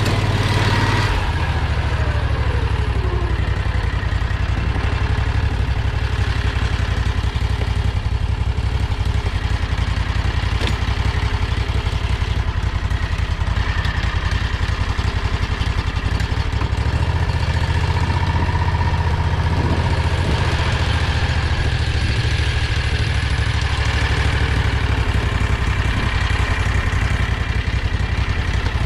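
Predator 670 V-twin engine of a home-built golf-car limousine running steadily, its note changing about a second in and again a little past halfway through.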